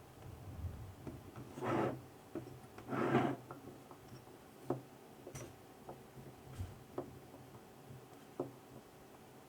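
Hands working on scooter parts at close range: two short rubbing, scraping sounds, then a few light clicks and taps.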